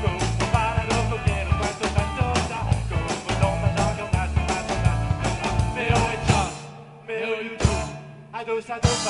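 Live rock band playing with electric guitars, bass and drum kit. About six and a half seconds in, the bass and drums drop out for a short break, broken by one sharp hit, and the full band comes back in near the end.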